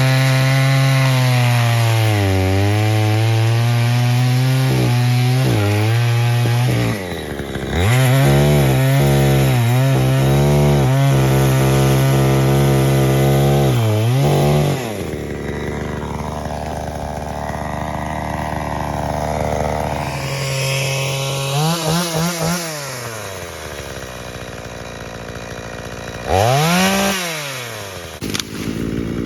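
ProRun 45 cc two-stroke gas chainsaw running at high revs for roughly the first half, with one brief drop-off. It then falls back to a lower idle, and the throttle is blipped several times in quick succession and once more near the end.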